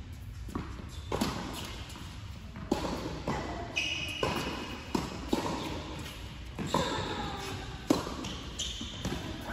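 Tennis balls being struck by rackets and bouncing on an indoor hard court during a baseline rally: a series of sharp pops and thuds about every half second to second, each ringing in the large hall.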